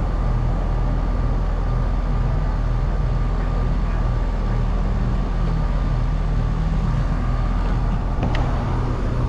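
An engine running steadily at constant speed: a low, even drone with a faint steady whine above it, and a couple of light clicks near the end.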